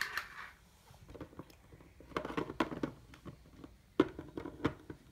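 Small plastic toy figures and miniature furniture being handled and set down on a cardboard box, making a string of light taps and clicks with one sharper click about four seconds in.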